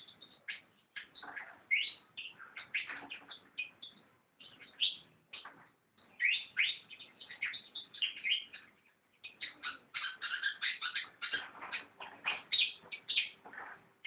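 Fantail singing: runs of quick, varied chirps and short whistled slurs, with brief pauses about four and nine seconds in.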